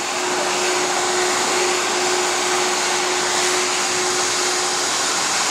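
Advertising CNC router running, with the steady rush of its vacuum suction and a steady whine held at one pitch.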